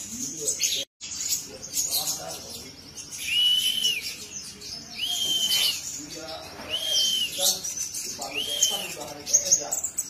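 Van Hasselt's sunbird (kolibri ninja) singing: fast, high, thin twittering, with a clear arched whistle repeated four times about a second and a half apart. The sound cuts out for a moment about a second in.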